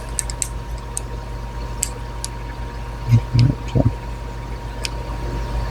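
Small faint clicks and taps of a tiny tool working at the pressed-in rocker pivot pin of a pocketknife's trapdoor, with a few dull low thumps a little past halfway, over a steady low hum.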